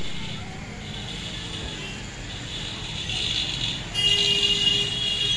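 Road traffic noise of passing vehicles, with a steady high-pitched tone coming in about four seconds in.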